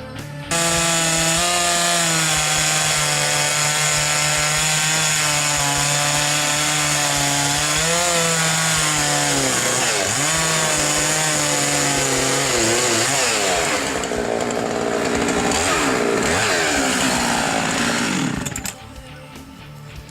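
Chainsaw mill running at full throttle, ripping lengthwise through a log. Its pitch wavers and sags under load in the second half, and it stops suddenly near the end.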